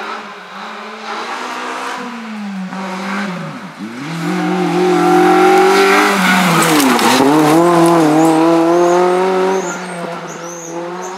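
Honda Civic Type R rally car driving hard past on a tarmac stage, its engine held at high revs. The revs dip sharply twice and climb again. The engine is loudest in the middle as the car goes by, then fades.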